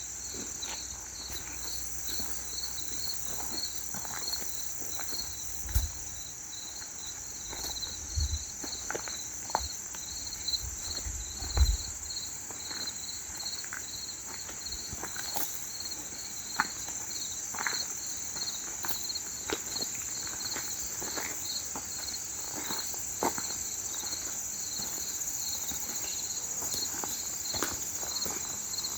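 Crickets chirping in a steady rhythm, about two to three chirps a second, over a constant high insect hum. Scattered light clicks and a few low thumps, the loudest about twelve seconds in, sound over it.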